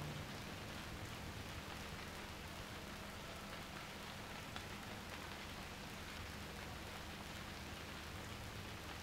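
A faint, steady hiss with a low, steady hum beneath it.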